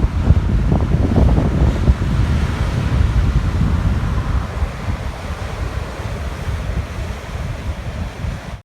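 Strong wind buffeting the microphone with a heavy low rumble, over the rushing wash of sea waves breaking on the shore, which swells and then eases.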